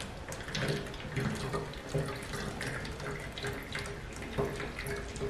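Water poured in a steady stream from a plastic pitcher into a plastic bottle, splashing and gurgling as the bottle fills.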